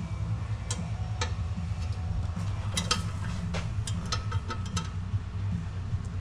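Light, irregular metallic clicks of hand tools working the oil pan bolts, over a steady low hum. The clicks bunch together from about three seconds in.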